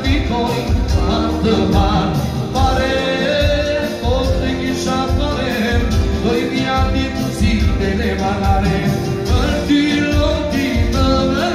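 Live amplified band music: a man singing into a microphone over keyboard backing with a steady beat.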